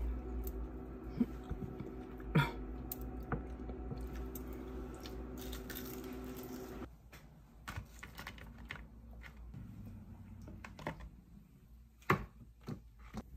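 Eating crispy baked chicken wings: chewing and biting, with scattered small clicks and crunches. Under it, a steady hum cuts off about seven seconds in.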